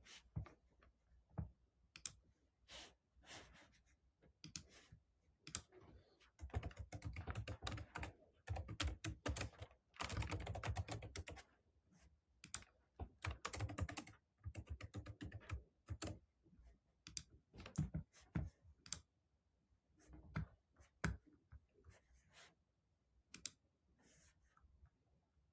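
Typing on a computer keyboard: bursts of rapid keystrokes with short pauses and scattered single key clicks.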